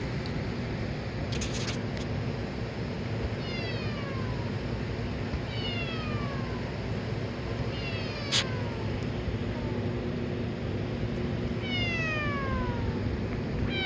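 Synthesized cat meow from a Thor synthesizer patch in Reason, a tone whose pitch is swept by an LFO: several falling glides a couple of seconds apart, starting about three seconds in, over a low steady hum. A sharp click about eight seconds in.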